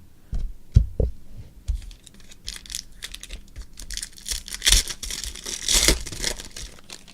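Trading cards and a foil pack wrapper being handled on a table: a few soft taps in the first second or so, then a few seconds of crinkling and tearing.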